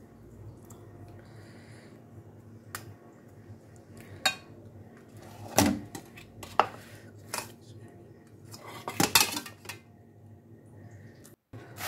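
Stainless steel bowl and kitchen knife clinking and knocking as grated ginger is mixed by hand and the bowl is shifted and set down. A series of separate sharp knocks, with a quick cluster of the loudest about nine seconds in.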